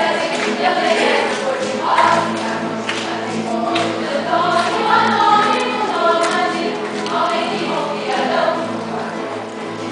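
Choir singing in Portuguese with an ensemble of nylon-string acoustic guitars (violões) playing along.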